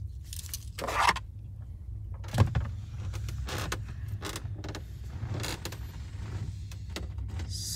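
Light clicks and knocks of a plastic dashboard speaker grille and trim being handled, over a steady low hum.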